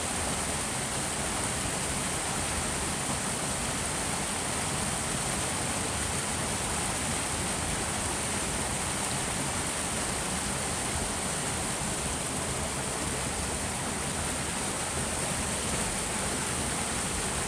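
Water of a small forest stream pouring over a low rocky cascade: a steady, unbroken rush of flowing water.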